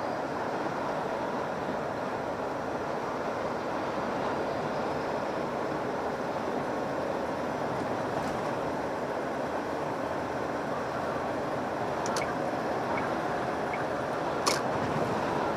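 Steady engine and road noise inside the cab of a Hino Profia truck cruising on the expressway, with a few short clicks near the end.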